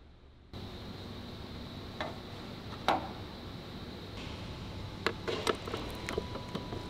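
Factory floor background with a steady low hum, broken by a few sharp metallic clicks and knocks: two single clicks, then a quick cluster of knocks about five seconds in.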